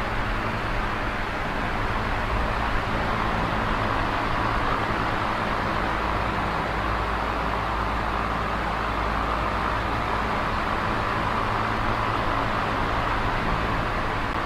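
Small oscillating electric fan running steadily: an even rush of air over a low motor hum.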